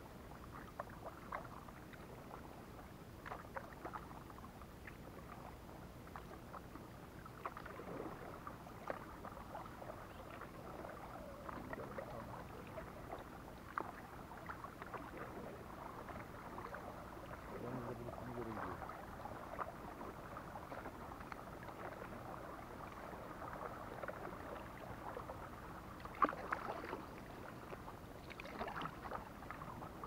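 Kayak paddling: paddle blades dipping and water splashing and dripping, with small irregular knocks throughout and one sharper knock near the end.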